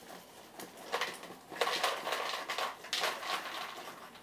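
Dry Pop-Tarts cereal pieces poured from the box into a plastic bowl, rattling in as the box is tipped, in several spurts from about a second in.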